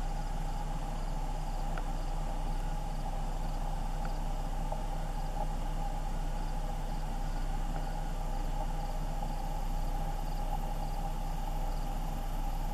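A steady low hum under faint, evenly repeated insect chirping.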